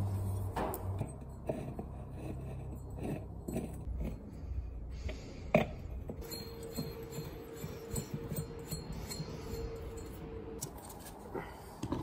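Small metal parts clinking and tapping as a condensate pump's new shaft seal and impeller are fitted onto the motor shaft, with one sharp click about halfway through. A faint steady tone sounds for a few seconds in the second half.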